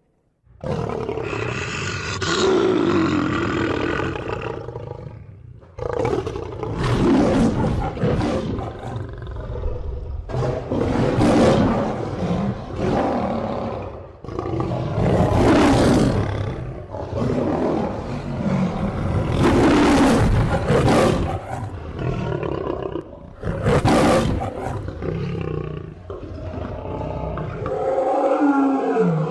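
A lion roaring again and again: a string of loud, rough roars, each a second or two long with short pauses between. The roars come from several recordings cut together, after a brief silence at the start.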